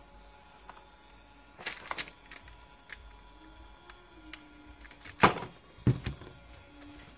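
Clicks and knocks from handling a homemade capacitor spot welder's wooden case and working its top-panel controls, with a loud thunk about five seconds in and a second knock just after.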